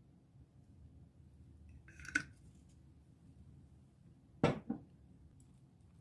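A salad-dressing bottle set down on a table: a sharp knock followed at once by a smaller second knock, about four and a half seconds in. A brief, lighter clatter comes about two seconds in.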